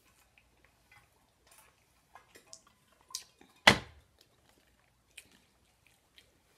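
Faint mouth and swallowing clicks from drinking, then a light tap and, about half a second later, a single loud knock as the drink bottle is set down on the table.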